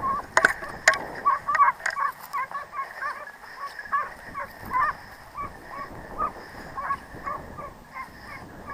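Many short animal calls repeating at about two or three a second, overlapping at first and thinning out and fading toward the end, with a few sharp knocks in the first second and a half.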